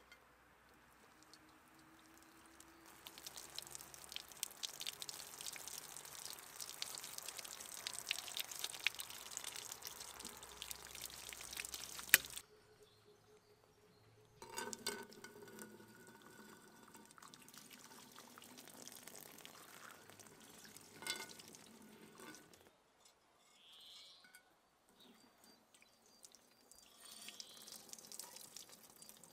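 Hot water poured from a kettle onto the bottom of an upside-down, soot-caked pot, splashing and crackling as it runs off onto a metal table. It comes in several separate runs with quieter gaps between them.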